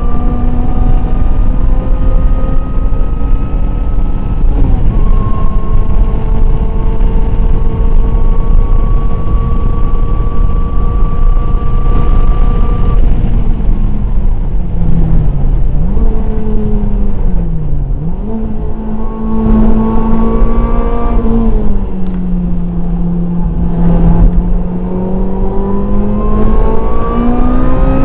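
Supercharged Lotus Elise's four-cylinder engine heard from inside the cabin at racing revs, its pitch creeping slowly upward for the first half. In the second half the revs drop and pick up again several times, settle lower for a few seconds, then climb steadily near the end, over a heavy low rumble of road and cabin noise.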